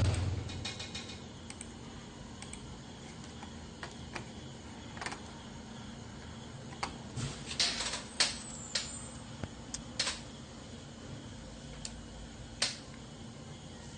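A knock at the start, then scattered sharp clicks and taps, several close together about eight seconds in, over a faint steady hum. These are small switch and button clicks and handling noise.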